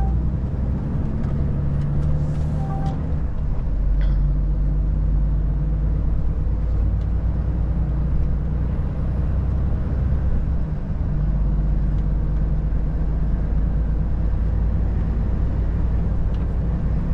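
Volvo FH 460 truck's six-cylinder diesel running steadily under way, with a constant low engine drone and road noise. A brief hiss comes about two seconds in, and a couple of short beeps sound near the start.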